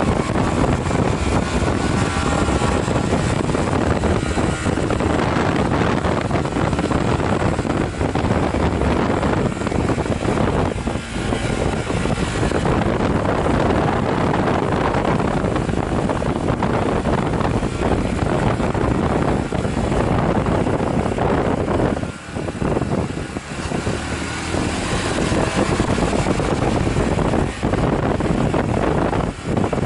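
Onboard sound of a Honda Varadero 125 V-twin motorcycle on the move: a steady rush of wind on the microphone mixed with the running engine. The noise dips briefly a little past two-thirds through.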